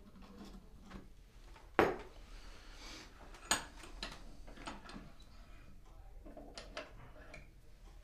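Handling knocks and clicks of metal type and small hand tools on a wooden workbench: a sharp knock about two seconds in, a second one about a second and a half later, then lighter clicks and taps as pieces are fitted and set down.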